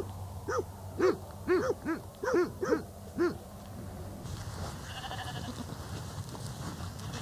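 A run of short, rising-and-falling animal calls repeated about twice a second, stopping a little after three seconds in. After that comes an even rush of wind on the microphone with a faint call in it.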